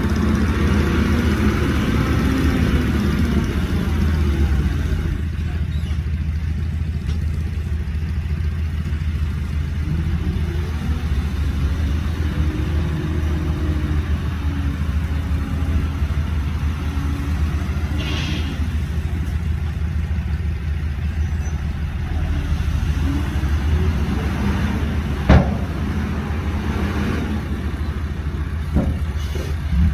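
Heavy diesel engine of earth-moving machinery running under load, a steady low rumble whose pitch rises and falls as it revs. Late on, a single sharp knock stands out.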